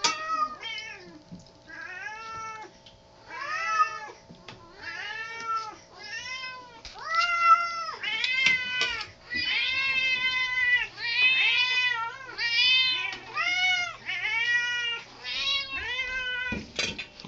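Several house cats meowing over and over at feeding time, their calls overlapping into a near-continuous chorus in the second half, begging for dinner. A single knock comes near the end.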